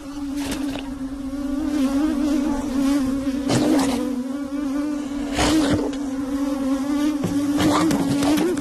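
Cartoon sound effect of a swarm of insects buzzing: a steady drone that wavers slightly in pitch. A few brief sharp sounds break through, the clearest about three and a half and five and a half seconds in.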